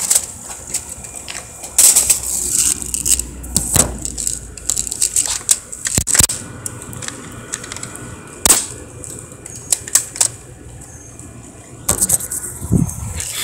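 Irregular sharp clicks and knocks of hard objects, with short patches of hiss, a sharper knock midway and a duller thump near the end.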